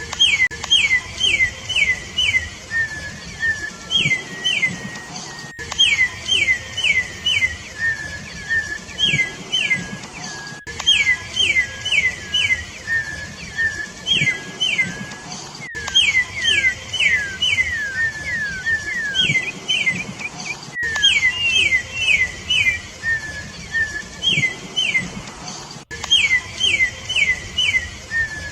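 Campo troupial (corrupião) singing: quick runs of three to five clear whistles, each sliding steeply down in pitch, repeated phrase after phrase, with a lower drawn-out whistle between runs.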